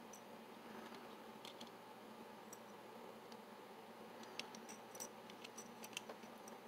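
Faint small clicks and ticks of a PDQ GP Series lever lock's metal chassis parts being handled and fitted together by hand. A few come in the first half, and they grow more frequent in the last couple of seconds, over a low steady hiss.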